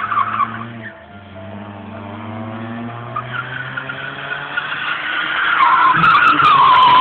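Car drifting: the tyres squeal over the engine running under throttle. The squeal builds and is loudest near the end.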